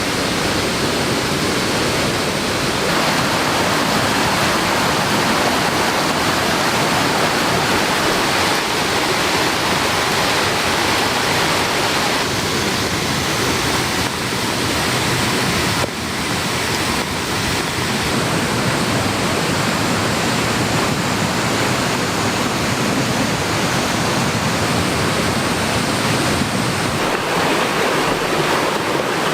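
Steady rush of water from a rain-swollen mountain stream, a dense even noise with a brief dip about halfway through.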